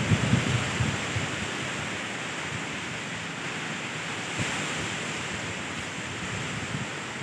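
Steady hiss of wind and distant surf, with wind gusts buffeting the phone's microphone during the first second.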